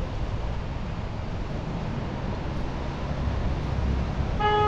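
Steady rush of storm wind and rain with traffic on a wet city street, wind buffeting the microphone. A car horn gives one short toot near the end.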